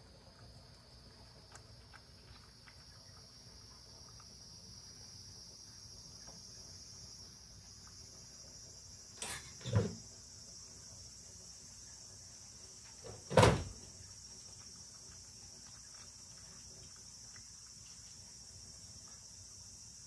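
Cat lapping soup from a bowl, faint licking ticks, over a steady high chirring of insects. Two loud knocks break in, one about nine and a half seconds in and a louder one about thirteen and a half seconds in.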